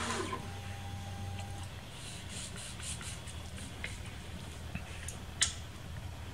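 Steady low hum of a ReliaBuild3d RB3 3D printer's cooling fans, with soft rustling of a sheet of paper being slid back and forth under the nozzle to check its drag while the bed is levelled. A single sharp click comes a little after five seconds in.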